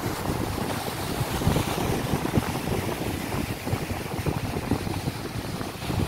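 Atlantic Ocean surf breaking and washing over shoreline rocks in a continuous rushing wash, with gusty wind buffeting the microphone.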